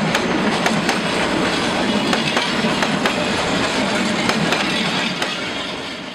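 Passenger train coaches passing at close range: a steady rumble of wheels on rails with sharp clicks now and then as the wheels cross rail joints. The sound fades out near the end.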